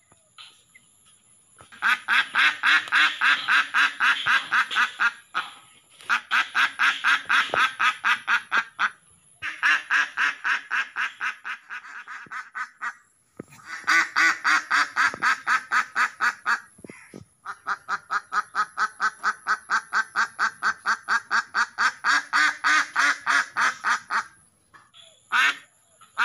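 Duck quacking in long rapid runs of about six quacks a second, five runs in all with short pauses between them.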